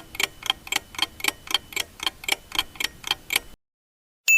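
Countdown-timer sound effect of a clock ticking evenly, about four ticks a second; the ticking stops about three and a half seconds in, and after a short pause a single bright ding sounds at the very end, marking time up.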